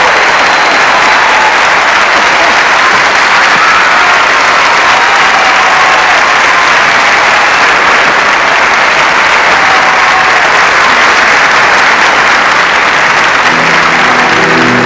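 Large studio audience applauding steadily. Band music comes in near the end.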